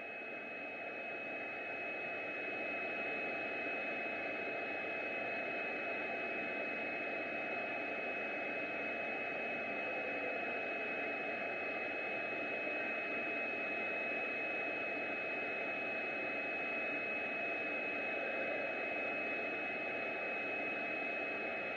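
Steady machinery noise: an even hiss with one constant high-pitched whine over it, not changing with the jogging of the axis.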